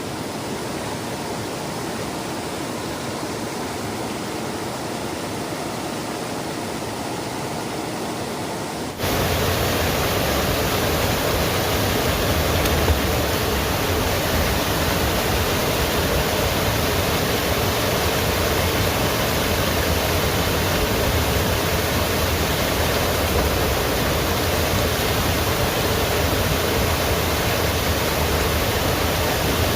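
Steady rushing noise that abruptly becomes louder and fuller about nine seconds in, then holds steady.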